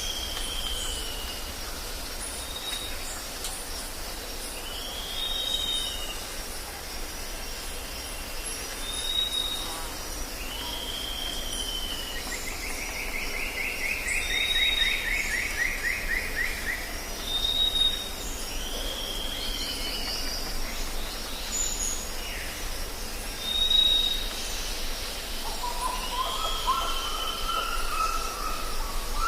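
Jungle birds calling over a steady drone of insects: a short arched whistle repeated every two or three seconds, brief high notes between, a fast trill falling slightly in pitch midway, and a lower warbled call near the end.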